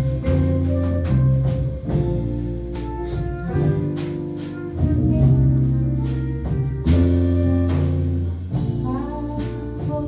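Live bossa nova ensemble of vibraphone, flute, piano, nylon-string guitar, bass and drums playing an instrumental passage, with sustained bass notes under the melody and a run of rising notes near the end.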